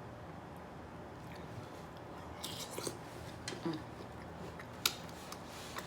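Close-miked eating sounds: a person chewing food, with scattered wet smacks and small crunchy clicks starting about halfway in and one sharper click near the end.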